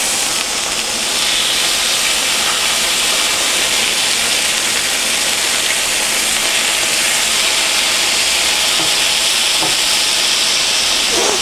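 Hamburger patty and bacon strips frying on a hot griddle, sizzling steadily.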